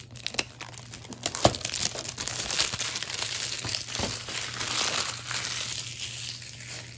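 Thin cheap plastic wrap being peeled off a DVD case and crumpled, crinkling irregularly, with a sharp click about a second and a half in.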